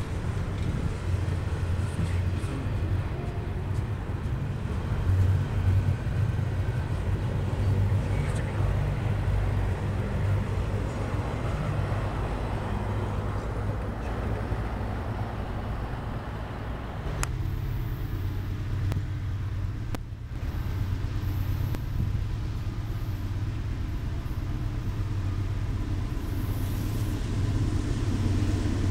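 Freight train rolling past: a steady low rumble with rattling from the double-stack container cars. The rattling dies down about two-thirds of the way through, leaving a lower rumble as a Norfolk Southern diesel locomotive approaches near the end.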